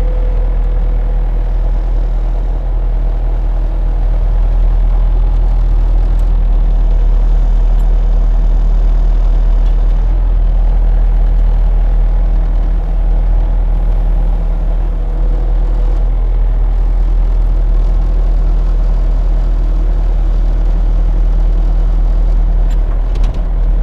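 Bobcat T300 compact track loader's diesel engine running steadily at a constant pitch, with a few faint clicks near the end.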